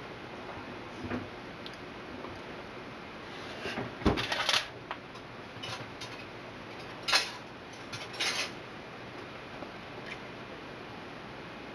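Kitchen clatter of cookware being handled: a thump and a run of clattering knocks about four seconds in, then single sharp clinks about seven and eight seconds in, over a steady background hiss.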